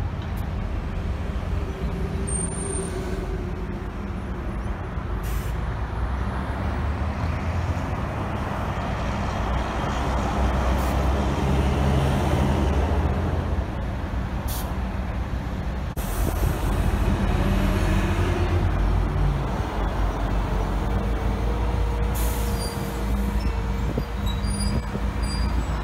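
City buses' engines idling and running, with a steady low rumble that swells twice as buses move. There are several short hisses of compressed air from the buses' air brakes.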